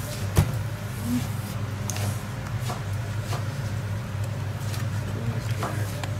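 Steady low hum of a restaurant kitchen, with a sharp knock about half a second in as a foil takeaway container is set down on the stainless-steel counter, followed by a few light clicks.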